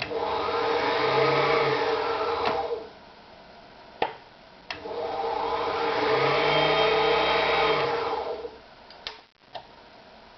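Privileg Super Automatik TopStar 796 sewing machine running at speed twice: about three seconds, a pause, then about four seconds, each a steady mechanical hum. Sharp clicks come between and after the two runs.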